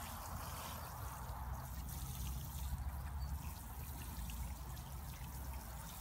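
Water showering steadily from a watering can's rose onto soil, with a steady low rumble underneath.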